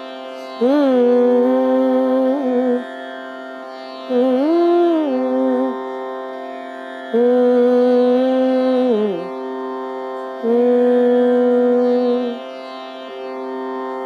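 Electronic tanpura drone from an app, steady throughout, with a woman's voice holding four long notes of about two seconds each, sliding up into each one.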